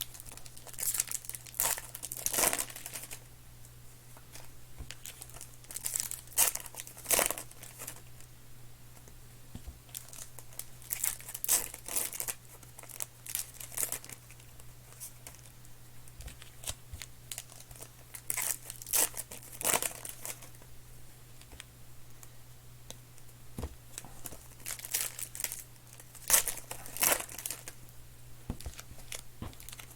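Trading-card pack wrappers crinkling and tearing as packs are ripped open and cards handled, in irregular bursts every few seconds. A steady low hum runs underneath.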